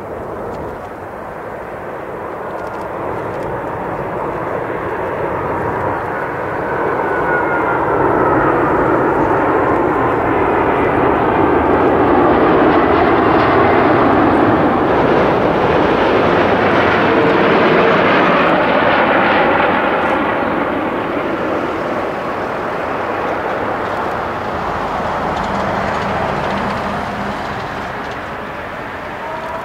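Airbus A380-841's four Rolls-Royce Trent 970 turbofans on final approach, passing low overhead. The jet noise builds to a loud peak about halfway through, with a whine falling in pitch as the airliner passes, then eases off as it moves away toward the runway.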